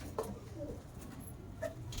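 Pigeons, quiet, with a few faint short coos.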